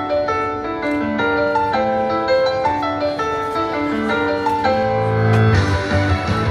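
Background music: a melody of clear, separate notes, with a fuller accompaniment joining about five and a half seconds in.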